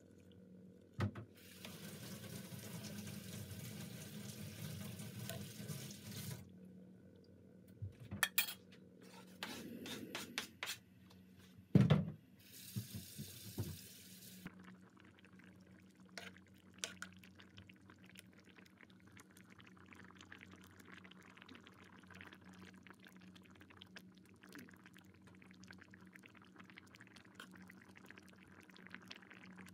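Steel spoon stirring a pan of oat soup with noodles, clinking against the pan a few times with one sharper knock about twelve seconds in. From about one to six seconds in there is a steady watery hiss, and a faint steady hum runs underneath.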